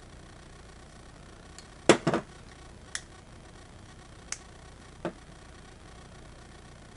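Small handling clicks and knocks from pliers and a plastic project box after a switch's lock nut is tightened. The loudest is a sharp double knock about two seconds in, as the pliers are laid down, followed by three light clicks as the box is turned in the hands.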